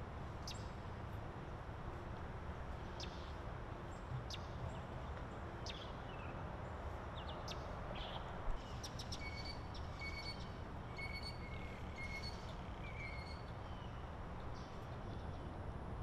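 Outdoor ambience: birds chirping in short high calls, with a run of repeated two-note calls in the middle, over a steady low rumble. A single sharp knock sounds about eight seconds in.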